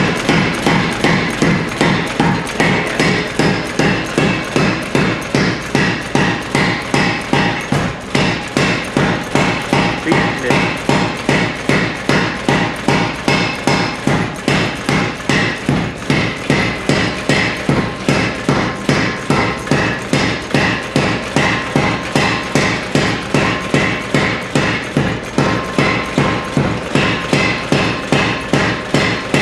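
50-pound mechanical power hammer pounding a white-hot damascus billet in a steady, rapid rhythm of blows, each with a slight metallic ring. These are the hammer blows that forge-weld the billet's layers together.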